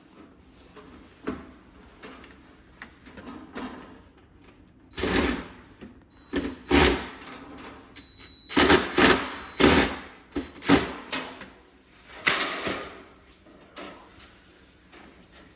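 Irregular knocks, clatter and rustling handling noises, loudest in a run of bursts through the middle, with a faint thin high tone for a couple of seconds.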